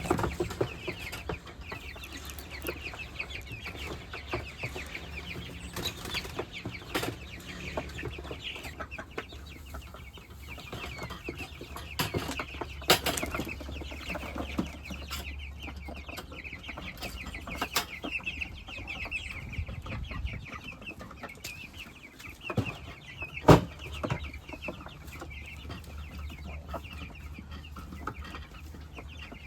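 A flock of young meat chickens peeping and clucking continuously, with a few sharp knocks, the loudest about two-thirds of the way in, over a low steady hum.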